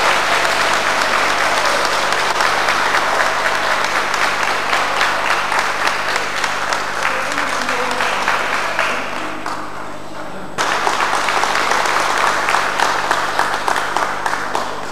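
Audience applauding, a dense mass of clapping. It dies down about nine seconds in, then breaks off and comes back at full strength a moment later, fading again near the end.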